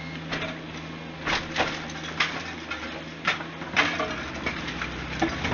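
Mini excavator engine running steadily while rubble and wood crack and knock irregularly as they are broken up and shifted. There are about a dozen sharp hits, the loudest nearly four seconds in.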